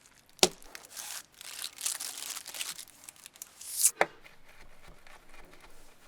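Spoon mixing a thick batter of chopped cabbage, sautéed vegetables, eggs and flour in a bowl: a wet, scraping rustle, with two sharp knocks of the spoon against the bowl, about half a second in and again about four seconds in.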